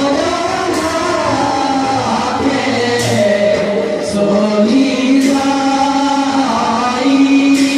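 Devotional singing at a Bhaona performance: voices holding long notes that slide in pitch, with a sharp high clash about every two seconds.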